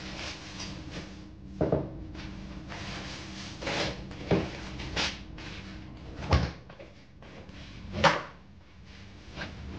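Household refrigerator being loaded and unloaded: about six separate knocks and clatters as items and shelf drawers are moved, and the fridge door is shut before the end. The loudest knocks come in the second half.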